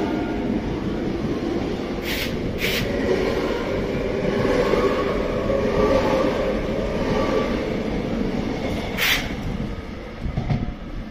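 Double-deck suburban electric train running past along the platform, a steady rumble of wheels and running gear. Two sharp clacks come about two seconds in and another near nine seconds, and the sound dies down near the end as the train goes by.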